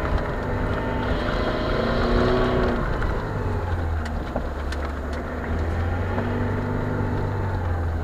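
Lada Niva 4x4's engine pulling steadily under load in first gear, low range, as the car climbs a steep hill, heard from inside the cabin: a low drone whose pitch wavers slightly.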